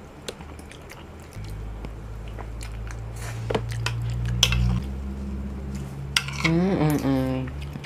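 Metal spoon and fork clinking and scraping on a ceramic plate while mouthfuls of durian glutinous rice are chewed. A low steady hum comes in about a second and a half in, and a short wavering 'mmm' of the voice follows near the end.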